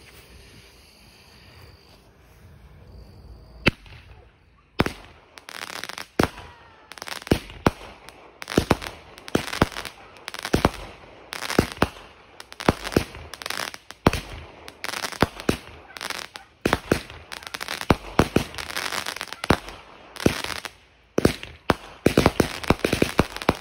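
Color King 25-shot firework cake firing: a few seconds of faint hiss from the burning fuse, then a fast run of sharp launch thumps and bursts, one to two a second, until near the end.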